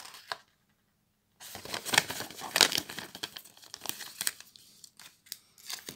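Paper and cardboard rustling and crinkling as a folded glossy paper insert and the box's paper contents are handled, in irregular crackly handfuls. A second of dead silence comes just after the start.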